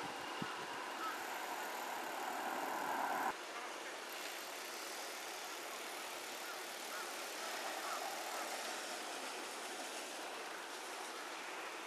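Roadside outdoor ambience with steady road noise from passing cars. A louder stretch cuts off abruptly about three seconds in.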